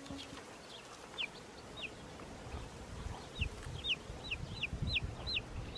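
Baby chicks peeping: single short, high calls that slide downward in pitch. There are two spaced calls in the first two seconds, then a quicker run of about three a second in the second half.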